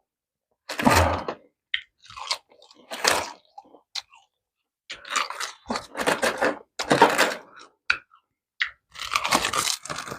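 A person eating pork kimchi stew close to the microphone: open-mouthed chewing in bursts of a second or two, with short pauses between mouthfuls.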